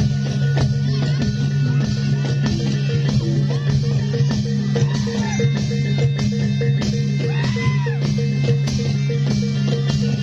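Loud amplified music with steady, dense drumming over a constant low drone, with two short rising-and-falling high notes near the middle. This is the live accompaniment to a reog dance performance.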